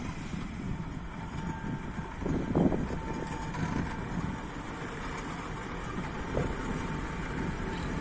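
ST44 (Soviet M62-type) diesel locomotives hauling a freight train slowly past, their two-stroke diesel engines running over a low rumble of wheels on the rails. One louder knock comes about two and a half seconds in, and a faint steady whine sits above the rumble.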